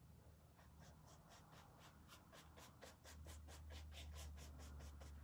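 Faint, quick strokes of a paintbrush on a canvas shoe, about five a second, as paint is brushed into the fabric, over a low steady hum.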